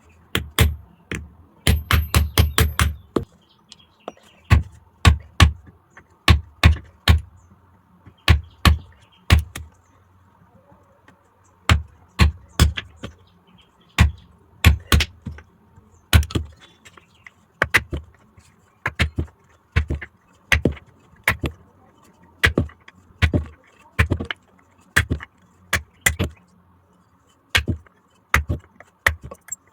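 Blacksmith's hammer striking metal on an anvil: sharp, ringing blows in irregular runs, with a fast flurry of several blows a second about two seconds in.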